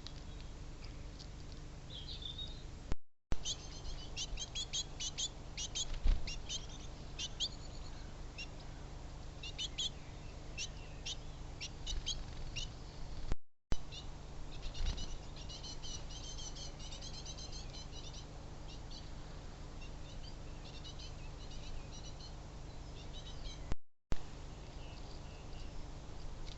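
Small birds chirping in quick, high bursts, on and off, over a steady low background noise, with a few soft thumps. The sound drops out briefly three times.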